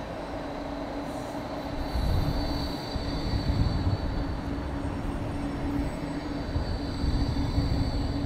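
Bombardier E-class tram running past close by: the rumble of its wheels on the rails, louder from about two seconds in, with a steady low hum and a thin high whine over it.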